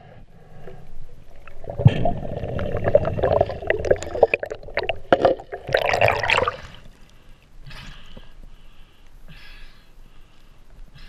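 Underwater bubbling and churning water with many small clicks and crackles as a snorkeler moves and rises, loud for a few seconds, then dropping about two-thirds of the way in to softer, intermittent water sounds.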